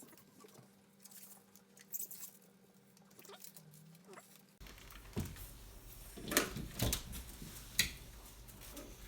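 Light scuffling and rustling of things being handled, then several sharp clicks and knocks in the second half, the loudest about six and a half to eight seconds in.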